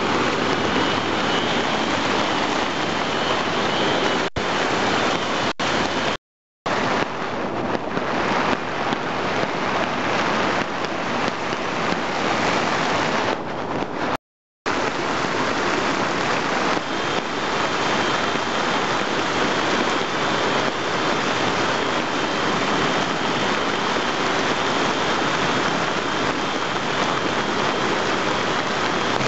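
Flash-flood water rushing over a street and sidewalk: a steady, loud rush of water, broken by two short gaps of silence about six and fourteen seconds in.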